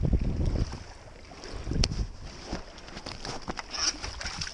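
Wind buffeting the microphone in low gusts, at the start and again about two seconds in, with small handling clicks and knocks and one sharp click about two seconds in.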